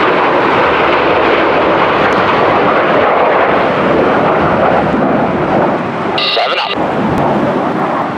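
Snowbirds' CT-114 Tutor jet trainers flying past in formation: a loud, steady jet roar that eases a little about six seconds in.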